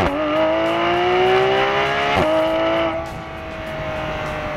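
Porsche 911 GT3's rear-mounted flat-six exhaust at full throttle, heard close to the tailpipes, rising in pitch with two quick PDK upshifts, one right at the start and one just past two seconds in. About three seconds in the throttle eases off and the note settles lower and quieter, sinking slowly in pitch.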